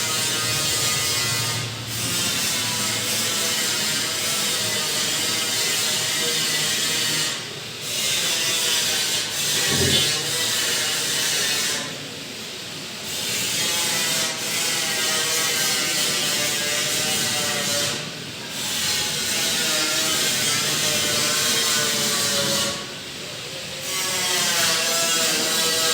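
Steady mechanical whirring with a wavering hum. Its level dips briefly about every five seconds.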